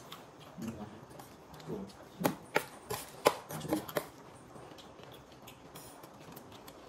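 Spoons clicking and scraping on plates as several people eat, with a quick run of sharp clicks in the middle and low murmured voices.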